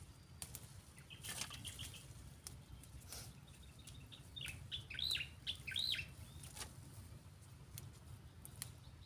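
A bird chirping, with a few quick rising-and-falling high notes about five seconds in, over scattered light snaps and rustles of chili plants being picked by hand. A low steady rumble lies under it all.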